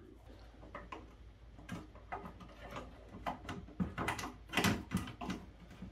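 Scattered light clicks, knocks and scrapes of hand work on a plastic electrical enclosure, with a small hand blade trimming the edge of a freshly hole-sawn opening. The handling knocks are loudest about four to five seconds in.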